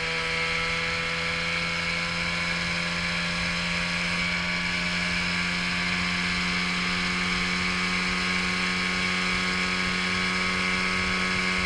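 Evinrude 9.9 hp outboard motor running hard with the boat up on the plane, a steady engine whine whose pitch creeps slightly up over the stretch.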